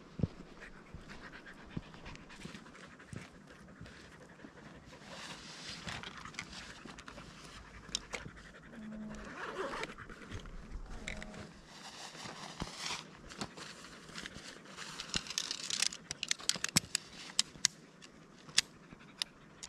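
A dog panting in repeated spells. Near the end come a run of sharp clicks as shock-corded tent poles are handled and snapped together.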